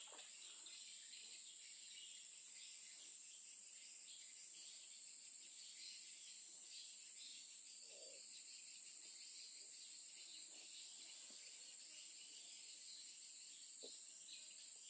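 Faint, steady, high-pitched chorus of insects such as crickets, with a few soft small knocks.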